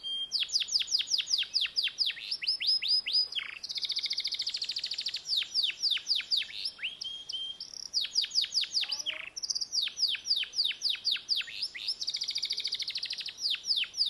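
Domestic canary singing a continuous song: runs of quick falling whistled notes, about five a second, alternating with fast rolling trills.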